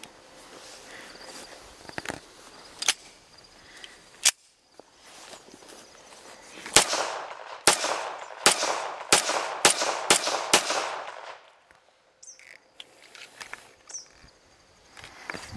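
Gunshots: a few separate cracks, then a quick string of about seven shots roughly half a second apart from a semi-automatic gun, each trailing off in echo.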